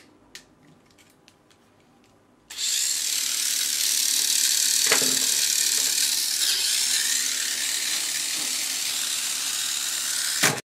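A few faint clicks, then about two and a half seconds in a steady mechanical whirr, like a small electric motor running, starts suddenly and runs on evenly until it cuts off abruptly near the end.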